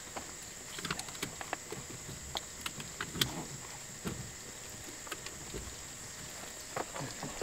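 Rustling and scattered small knocks and clicks of outdoor gear being handled and packed at the open back of a car. A steady high-pitched insect drone runs underneath.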